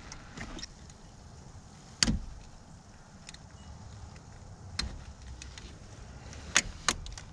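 Scattered sharp metal clicks and taps, the loudest about two seconds in and a quick pair near the end, as packed corrosion is picked and knocked out of a car battery terminal clamp with a tool.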